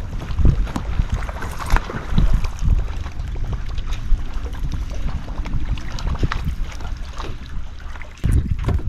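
Wind rumbling on the microphone, with scattered short clicks and knocks over it.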